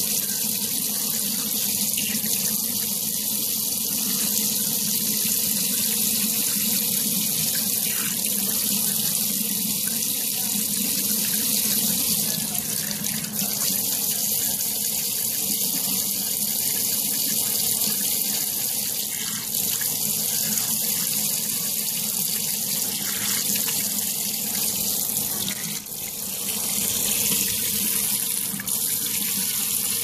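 Tap water running steadily into a sink, splashing over a budgie being bathed under the stream.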